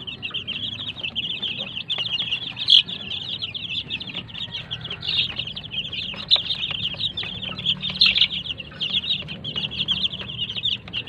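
A brood of three-week-old gamefowl chicks peeping without pause: many short, high-pitched cheeps overlapping into a continuous chorus.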